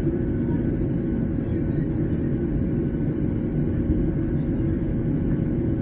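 Airliner cabin noise at cruise: a steady low rumble of airflow and jet engines with a constant hum running through it.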